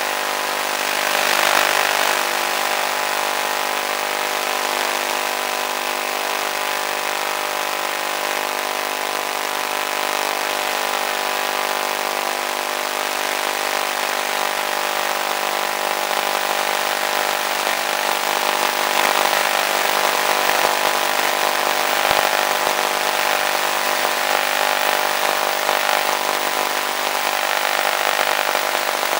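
Electric motor and propeller of an RC model plane running at steady cruise throttle, a constant whine with several fixed tones over a hiss of rushing air. The hiss swells briefly about a second and a half in and again about two-thirds of the way through.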